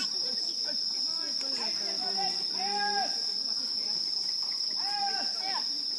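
Steady high-pitched chorus of crickets chirring without a break, with a voice calling out twice in the background.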